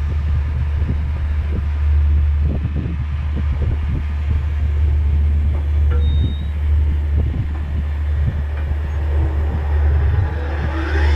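Air seeder drill towed across a field at planting: a steady deep rumble with frequent irregular clanks and rattles from the toolbar, its openers working the soil.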